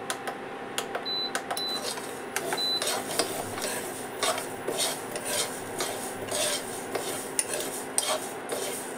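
A steel spoon stirring and scraping yellow mustard seeds as they dry-roast in a nonstick pan: the seeds rustle and the spoon clinks and scrapes against the pan at irregular moments.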